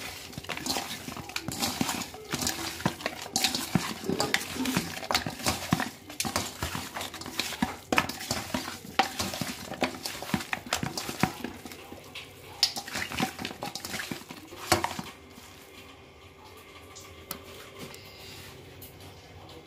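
Raw mutton pieces and potato chunks being mixed by hand with salt and spices in a stainless steel bowl: irregular clattering and knocking against the steel, which stops about fifteen seconds in.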